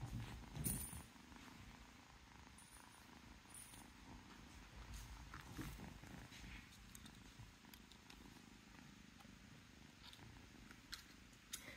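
Kitten purring steadily while it is brushed, with a bump near the start and a few light clicks and scratches from the brush.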